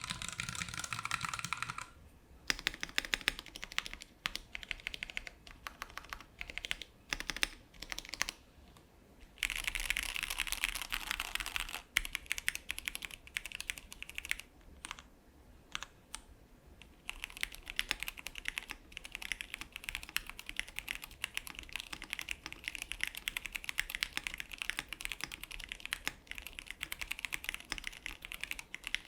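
Typing on a KBD67 Lite R2 mechanical keyboard with stock Cherry MX Black Hyperglide linear switches. It goes in fast runs of keystrokes, broken by sparser strokes and short pauses.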